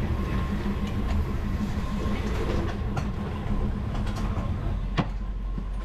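Diesel railcar train running slowly along the market track, a steady low engine and wheel rumble with a few clicks, the sharpest about five seconds in.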